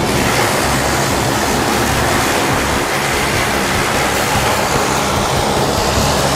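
Skydiving aircraft's engine and propeller running, a loud steady drone with a rushing noise over it that does not change.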